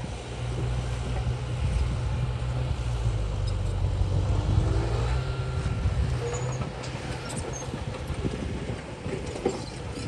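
Diesel engine of heavy earthmoving machinery running under load, with a deep steady drone that drops away about six seconds in. Short metallic squeals and clanks sound over it.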